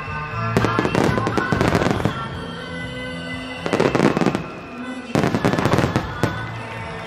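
Fireworks going off in three rapid volleys of bangs and crackle, the first lasting about a second and a half, the second short, and the third starting about five seconds in. Music plays underneath.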